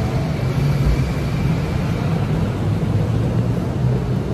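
Steady low hum of a moving car, engine and road noise with no sudden events.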